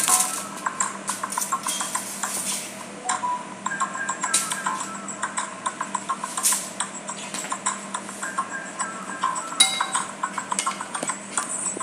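Aluminium foil crinkling as it is peeled off a metal baking pan. Near the end comes a metal spoon clinking and scraping against the pan while the juices are spooned over a roast chicken.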